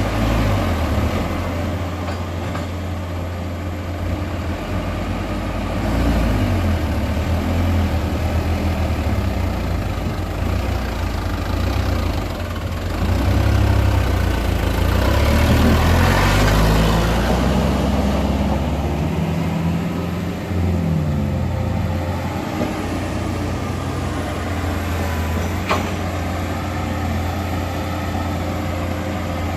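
Heavy diesel engines of an excavator and a dump truck running at a work site, the engine note rising and falling as the machine works under load. A louder stretch of rushing noise comes about halfway through, and a single sharp knock near the end.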